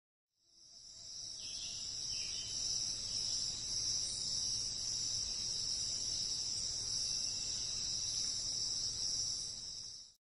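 Steady, high-pitched chirring of insects, fading in at the start and fading out near the end, over a faint low background hum.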